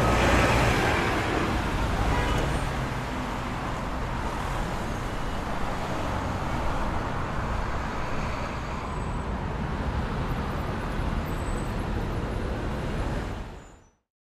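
Steady rumble and rattling noise of a passenger train car in motion, heard from inside the car, fading out near the end.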